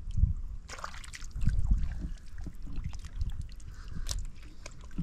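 Mud and shallow water squelching and sloshing as hands and feet work through a muddy wetland while fishing by hand, with irregular low thumps and a few sharp clicks.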